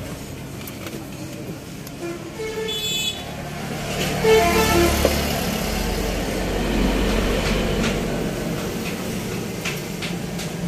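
Road traffic: a vehicle horn toots briefly about two and a half seconds in and again, louder, about four and a half seconds in, then a vehicle rumbles past.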